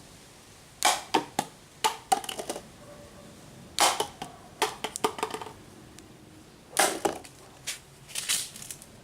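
A paper toy rifle being worked: short clusters of sharp clicks and snaps, about seven bursts spread across several seconds, the first starting about a second in.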